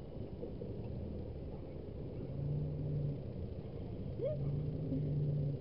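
Vehicle engine running at idle: a low rumble with a steady hum that swells twice.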